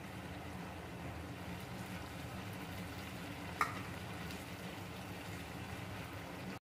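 Okra and potatoes in poppy-seed paste simmering and sizzling steadily in an aluminium kadai, with one sharp clink about halfway through. The sound cuts off suddenly just before the end.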